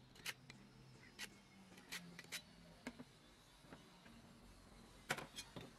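A scattering of light clicks and taps from steel bar pieces and an abrasive cut-off disc being handled and set against each other, the loudest about five seconds in, over a faint low hum.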